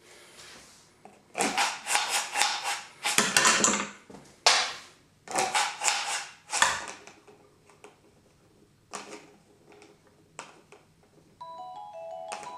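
Dice rattling and clicking inside a dice cup as it is swept and shaken to gather and stack a column of four dice, in dense rattling runs for several seconds, then a few single clicks. About eleven seconds in, a phone timer alarm starts playing a marimba-like melody, marking the end of the minute.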